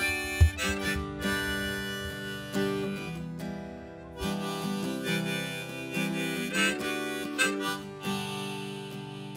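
Harmonica played in a neck holder, with acoustic guitar accompaniment: a slow melody over strummed chords.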